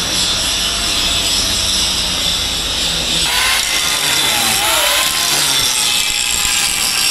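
A power tool or piece of shop machinery running steadily and loudly, with a whine that wavers up and down from about three seconds in.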